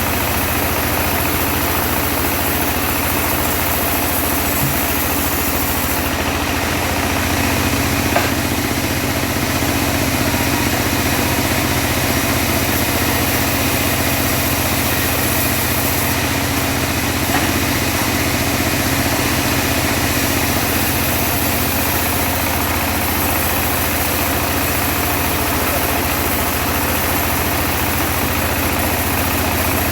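Engine of a homemade bandsaw sawmill running steadily, with a single sharp click about eight seconds in.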